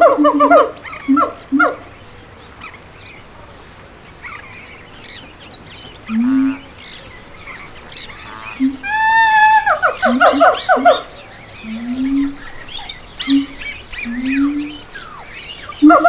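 Primate calls: a series of short low rising hoots every second or two, with a louder wavering call about nine seconds in, while small birds chirp.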